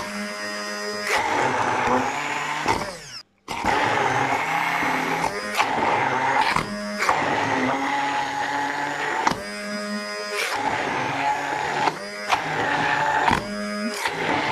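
Immersion (stick) blender running in a plastic beaker, chopping boiled carrot, herring fillet and processed cheese. Its pitch shifts repeatedly as it works, with a brief stop about three seconds in.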